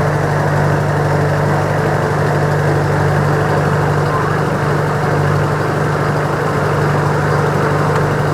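Engine of a river passenger ferry boat running steadily at an even pitch, with the hiss of the hull through the water beneath it.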